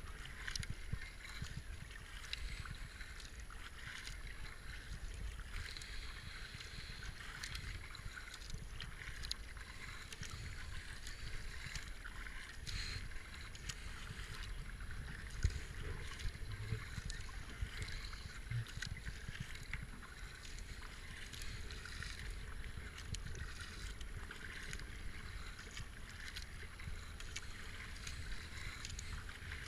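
Kayak paddle strokes: the blades of a double-bladed paddle dipping and pulling through calm river water, with small splashes and drips. Under them runs a low rumble of wind on the helmet camera's microphone.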